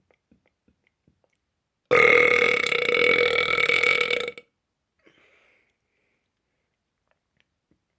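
A person's deliberate burp, one long loud belch lasting about two and a half seconds, starting about two seconds in and holding a steady pitch. A few faint clicks come before it.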